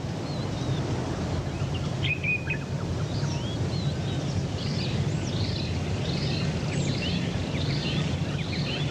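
Small birds chirping and calling repeatedly from about two seconds in, over a steady low rumble of open-air ambience.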